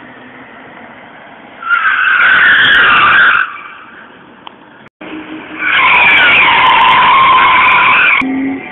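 Car tyres squealing as a car drifts, sliding sideways. There is one squeal of about a second and a half around two seconds in. After a sudden cut comes a longer squeal of about two and a half seconds.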